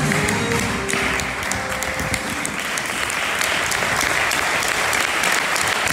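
Tango music ending about a second or two in, followed by steady audience applause.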